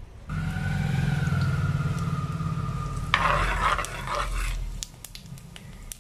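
A steady mechanical hum with a faint whine sets in abruptly. About three seconds in, a steel ladle scrapes and stirs fennel seeds spluttering in hot coconut oil in an iron wok for a second or two.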